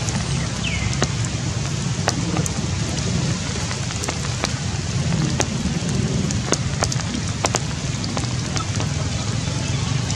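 Steady rain falling on tree leaves, an even hiss with many scattered sharp drop clicks. A short falling chirp sounds about a second in.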